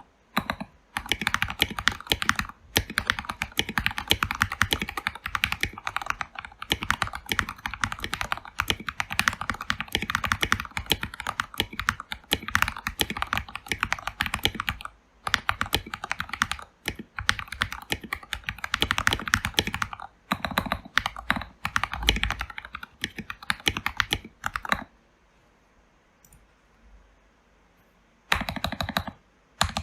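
Fast, continuous typing on a modded Keychron K2 mechanical keyboard: lubed Gateron Yellow linear switches, foam-damped case and SA-profile ABS keycaps. The typing stops for about three seconds near the end, then resumes.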